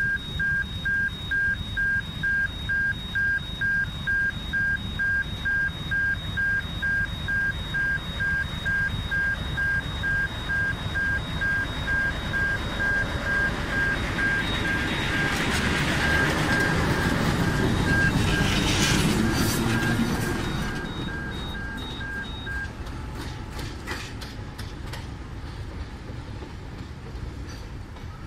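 Level crossing warning alarm sounding about twice a second while a diesel locomotive rolls slowly past close by. The locomotive's engine and wheels are loudest about two-thirds of the way through. The alarm stops a little after that, and wheel clicks over the rails follow.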